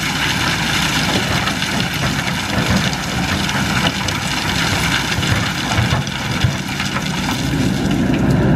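Kobelco hydraulic excavator's diesel engine running under load while a bucketful of river stones pours into a dump truck's bed, the rocks clattering and rattling; the clatter thins out near the end as the empty bucket swings away.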